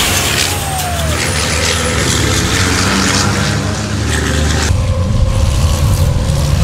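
Race truck running through a gravel trap: gravel spraying and rattling over a diesel engine. About two-thirds of the way in the sound changes abruptly to the deep rumble of a race truck's diesel engine passing at speed.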